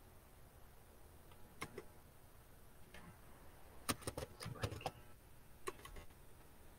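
Faint keystrokes on a computer keyboard: a quick run of several clicks about four seconds in, with a few single clicks before and after.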